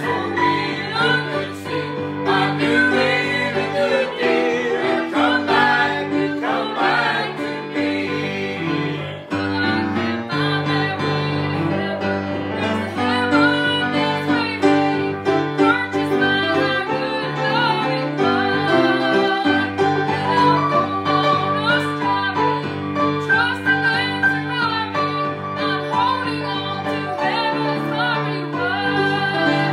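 A grand piano accompanying a small group, a woman and men, singing a gospel song together.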